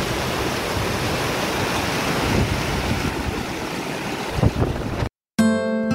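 Fast, muddy flood water of a small stream rushing over rocks in a steady, noisy rush. About five seconds in it cuts out abruptly, and strummed acoustic guitar music begins.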